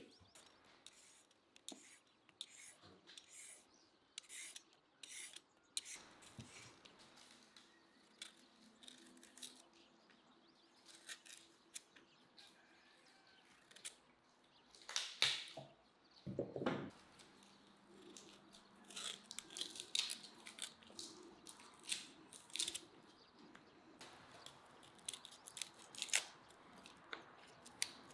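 Faint hand food-prep sounds: short scrapes, snips and clicks of knives and a peeler working carrots, cabbage and garlic over a wooden board, with a couple of louder knocks against the board midway.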